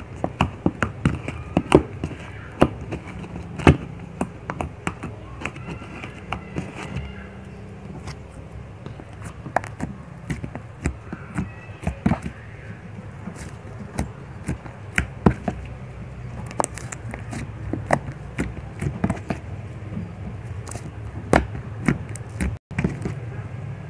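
Sticky toothpaste-and-powder slime being pressed and kneaded by fingers, giving irregular wet clicks and pops, several a second.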